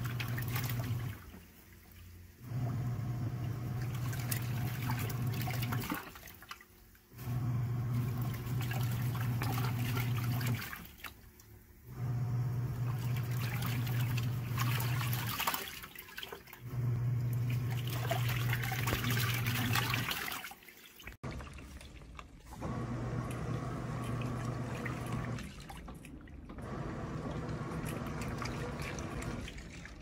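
Portable top-loading washing machine in its wash cycle. The motor hums in spells of about three and a half seconds with a pause of about a second between each as the agitator reverses, and water sloshes in the tub throughout. The hum drops in level about two-thirds of the way through.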